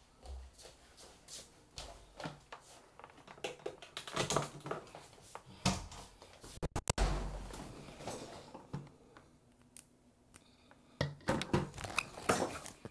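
Scattered clicks, knocks and rustling handling noise, with a brief cut-out in the audio about seven seconds in: a microphone and its cord being handled and connected.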